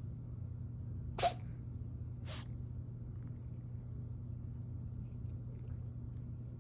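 A cat sneezing twice, about a second apart, the first sneeze louder. A steady low hum runs underneath.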